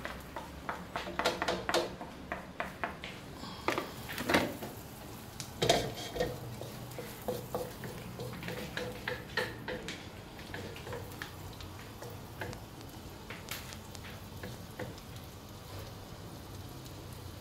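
Wooden spatula stirring and scraping minced garlic around a wok, over a faint sizzle of garlic sautéing in melted butter. The spatula taps and scrapes come thickest in the first few seconds, then thin out to a few taps over the steady sizzle.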